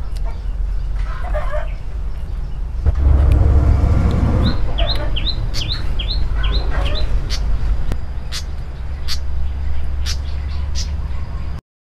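Small birds chirping in quick repeated calls, with a chicken clucking a few times, over a steady low rumble. The sound cuts out abruptly just before the end.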